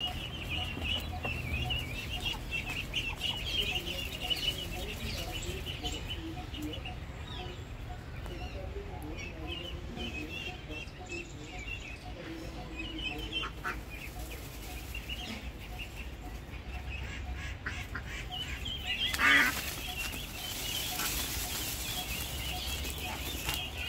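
Domestic ducklings peeping in a steady chatter of short, high chirps. About 19 s in there is one louder burst, followed by a hiss of rustling in dry leaves as the brood walks on.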